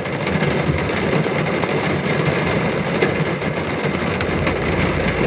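Heavy rain drumming on a car's roof and windscreen, heard from inside the cabin: a dense, steady patter with many sharp individual drop cracks, which sounds like fireworks crackling.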